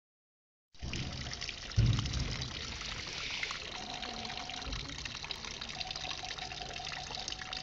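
Two streams of water from a bronze fountain's urinating figures pouring and trickling into a shallow pool, with a loud low thump about two seconds in.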